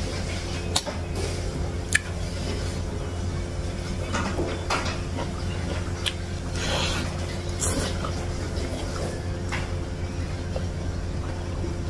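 Close-miked eating sounds: chewing and wet mouth noises as a piece of sambal chicken is bitten and eaten, then the soft squish of rice being mixed by hand. Irregular small clicks and smacks sit over a steady low hum.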